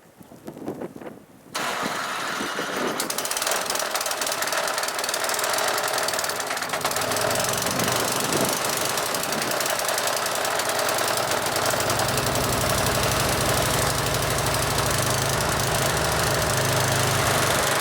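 Ariens snowblower engine coming on suddenly about a second and a half in and then running steadily and loudly, a deeper hum joining it in the second half.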